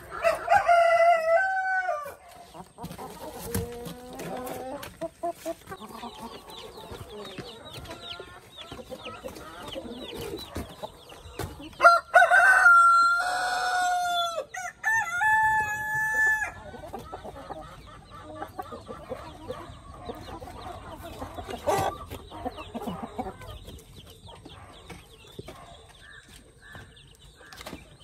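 Brahma chickens clucking, with a rooster crowing loudly about twelve seconds in: one long crow in several parts lasting about four seconds. A shorter pitched call comes near the start.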